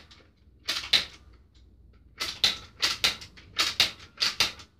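Hard plastic clicks from a Nerf Modulus blaster and its flip-up shield attachment being worked by hand: one click, then five quick double clicks a fraction of a second apart.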